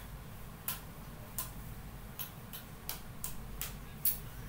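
Sharp, short clicks, about eight of them at uneven intervals, over a low steady hum; the loudest comes near the end.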